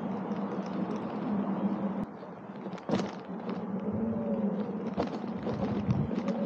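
Electric unicycle riding a dirt trail: tyre rolling noise and a steady low hum, with sharp knocks from bumps about three and five seconds in.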